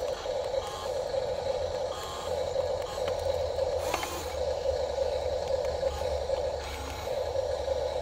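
RC excavator's electric motors running steadily as the model swings its loaded bucket over a dump truck, with a brief rattling burst about four seconds in.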